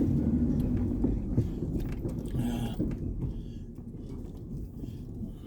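Pickup truck crawling over a rough dirt track: low engine and tyre rumble with knocks and rattles from the body, easing off after the first couple of seconds.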